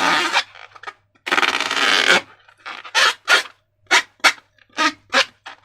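Rubbing and scraping noises from slime and balloons being worked by hand: a couple of longer strokes, then a quick run of short ones.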